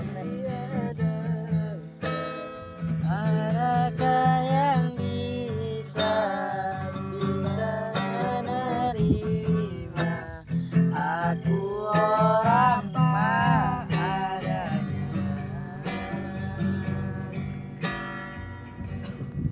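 Acoustic guitar music with a melody line that glides up and down over a steady low bass.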